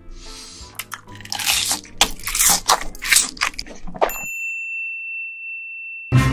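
Close-miked eating sounds of spicy braised seafood: wet, crunchy bites and chewing over soft background music. About four seconds in these cut off and a steady high-pitched electronic beep holds for about two seconds, ending in a loud low thump.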